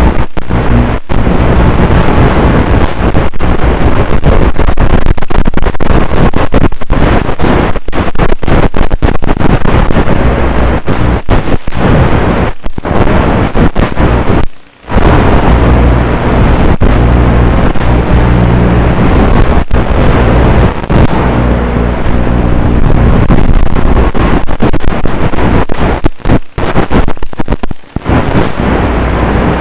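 Blade Torrent FPV quadcopter's motors and propellers running, heard as a loud, distorted rush with a low hum and wind buffeting. The sound cuts out briefly many times, most clearly about halfway through.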